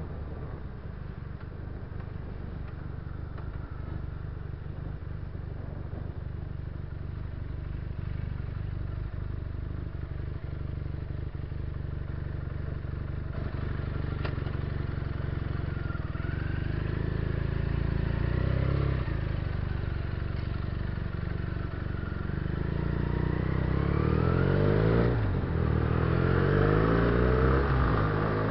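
Benelli TNT300's 300 cc parallel-twin engine running under way in city traffic, heard from the rider's position. It is steady and low at first; from about halfway in it pulls away, its pitch climbing and dropping several times, and it is loudest near the end.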